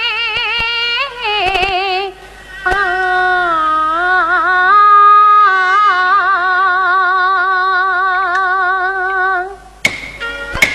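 A woman singing a long drawn-out Yue opera phrase with wide vibrato, over the opera's accompaniment. Near the end come a couple of sharp percussion strikes.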